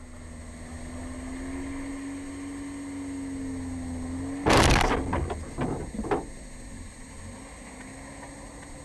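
A car's engine hums steadily, rising slightly in pitch, then about four and a half seconds in comes a sudden loud bang of a low-speed collision with the back of the SUV in front, followed by a few smaller knocks, heard from inside the car's cabin.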